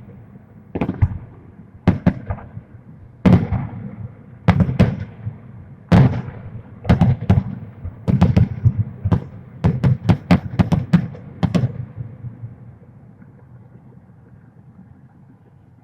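Fireworks salute: a string of booms, each trailing off in an echo, coming faster in the middle and ending about twelve seconds in.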